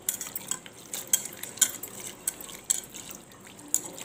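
A hand squishing and mixing raw small mola fish with spices, oil and a little water in a cooking pot: irregular wet squelches and clicks, several a second.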